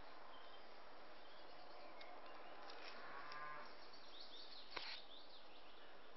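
Faint outdoor background noise, with a cow mooing once, briefly, about three seconds in. A single sharp click about five seconds in.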